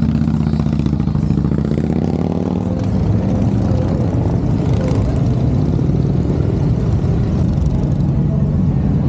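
Harley-Davidson V-twin motorcycle engine running under way, easing off at first and then climbing in pitch about two seconds in as it accelerates, before holding steady.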